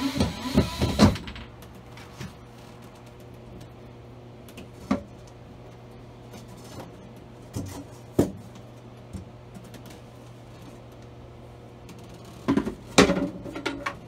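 Wooden boards and panels knocking and thumping as they are handled, in a cluster at the start, single knocks in the middle and another cluster near the end, over a low steady hum.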